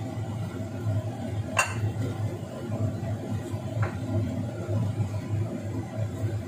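A wok tipped over a china plate while stir-fried choy sum is scraped out with a spatula: two light clinks against the plate, about one and a half and four seconds in, over a steady low hum.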